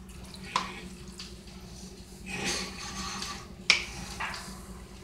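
Fideo noodles being stirred in a deep skillet: a utensil clicks against the pan a few times, with a scraping rustle through the noodles a little past halfway and the sharpest knock near the end, over a low steady hum.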